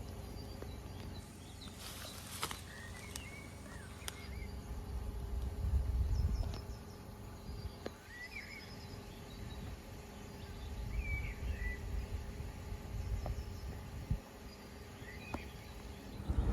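Ductless heat pump outdoor unit running with a steady hum, under a low rumble that swells and fades twice. Birds chirp several times over it.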